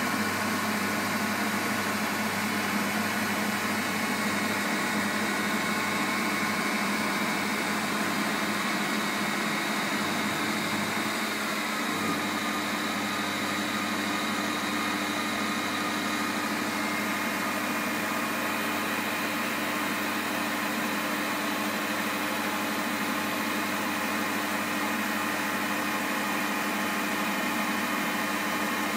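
MAHO MH 700 C CNC universal milling machine running under power: a steady mechanical hum with several steady whining tones, a few of which drop out or shift in pitch along the way.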